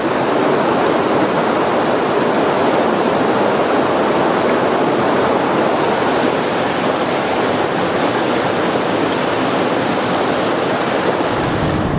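Mountain river rushing over rocks and boulders in rapids: a steady, loud roar of white water.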